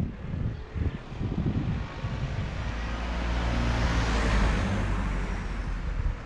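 A Volkswagen Golf passing close by in the oncoming lane. Its engine hum and tyre noise swell to their loudest about four seconds in, then fade. Gusts of wind on the microphone come at the start.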